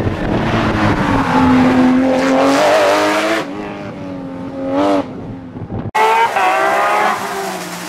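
Rally car engine revving hard as it drives past on a stage, the pitch climbing for about three seconds, dropping, then rising again briefly. The sound cuts off abruptly near six seconds, after which another engine is heard revving.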